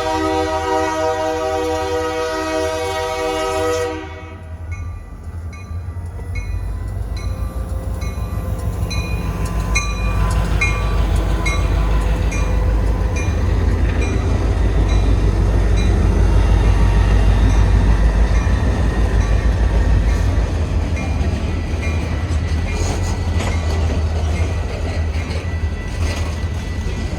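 Union Pacific locomotive horn sounding a chord, which cuts off about four seconds in. Then the heavy rumble of the passing train, with wheels clicking rhythmically over the rail joints; it builds to its loudest around the middle and then slowly eases.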